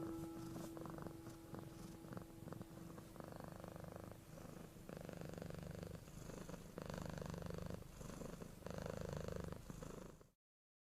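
A cat purring, swelling and fading with each breath about every two seconds; it cuts off abruptly near the end.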